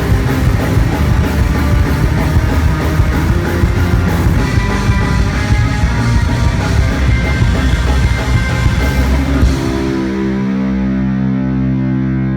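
Rock music with distorted electric guitar and drums; about ten seconds in the drums stop and a held guitar chord is left ringing.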